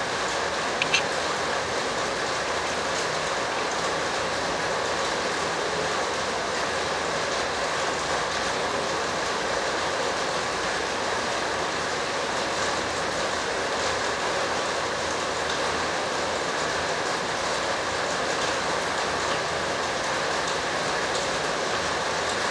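Steady, even rushing noise with no pitch to it, and a brief high click about a second in.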